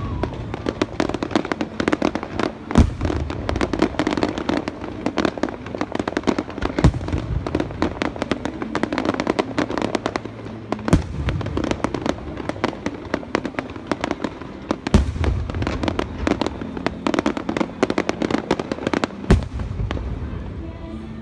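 Aerial fireworks display: dense crackling and popping of bursting shells, with a deep boom about every four seconds.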